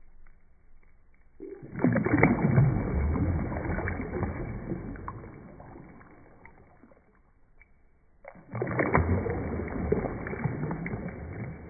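Water sloshing and churning in two surges. The first starts suddenly about a second and a half in and fades away over several seconds; the second starts just as suddenly about eight seconds in and fades again.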